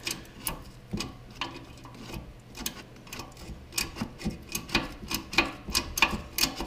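Hand ratchet clicking in short, uneven strokes, about two clicks a second, while it turns out a rusty exhaust manifold-to-pipe flange bolt, the nut held by a second wrench.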